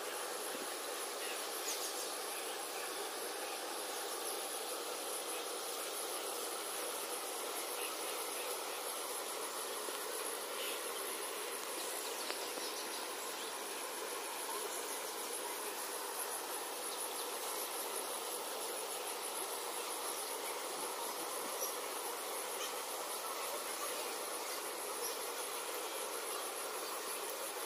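Insects trilling steadily in one continuous high-pitched drone, over an even background hum.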